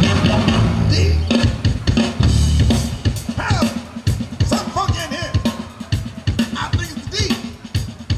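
Drum-heavy dance music track played over a PA: a deep bass line with kick and snare for the first few seconds, then choppy percussion hits cut with short swooping sound effects.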